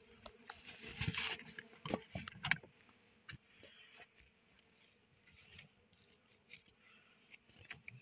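Scraping, rustling and sharp clicks as a blade and hand work at a wild honeybee comb against the rock. The scraping is densest from about one to two and a half seconds in, then thins to scattered clicks.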